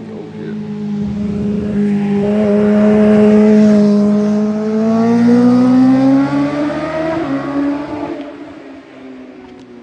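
Yamaha R6 sport bike's inline-four engine at high revs, its pitch climbing a little. It grows louder from about a second in, is loudest mid-way, then fades away near the end.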